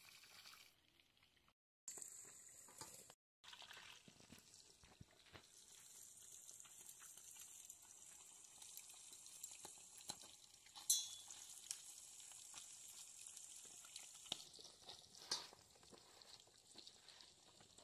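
Faint slicing of vegetables against a bonti, a curved blade fixed upright on a wooden base: a soft steady hiss with a few sharp clicks, the loudest about eleven seconds in.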